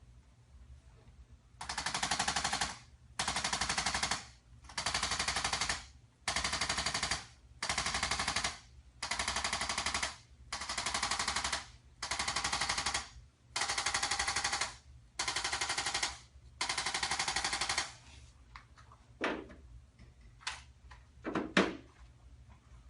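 Handheld electric chiropractic adjusting instrument firing rapid taps in about eleven bursts, each roughly a second long with short pauses between. It goes quiet near the end, leaving a few light clicks and one sharper knock.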